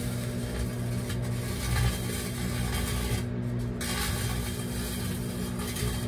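Microwave oven running with a steady hum while a metal wire-mesh basket and foil inside it arc, a rasping, sizzling crackle of electrical sparks that cuts out briefly a little past three seconds in, then picks up again.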